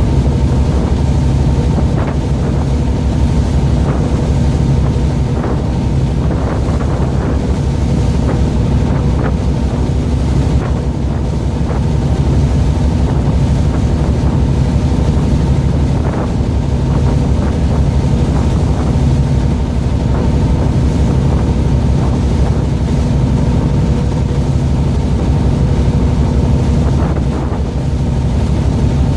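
A fishing boat's engine running steadily with a constant hum, with wind buffeting the microphone.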